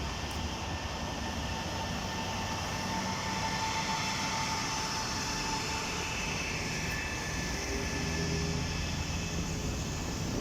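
EP20 electric locomotive hauling a passenger train on the move, a steady rumble of the train with a high, even whine from the locomotive's electrical equipment.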